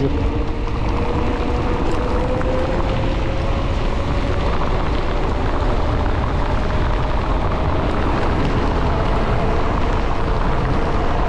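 Wind rushing over the camera microphone and mountain bike tyres rolling on asphalt on a fast downhill run, as speed builds. A thin tone rises slowly through the first half.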